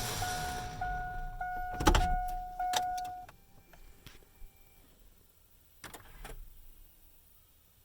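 Truck's running noise dies away, then a steady electronic warning tone sounds for about three seconds, cut by a few sharp clicks and a thump. Two more clicks come about six seconds in, then it goes quiet.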